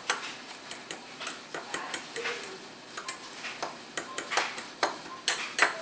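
Metal fork clinking and tapping against a small glass bowl as it breaks up clumped crushed red pepper flakes: quick irregular clinks, some with a short glassy ring, coming faster and louder near the end.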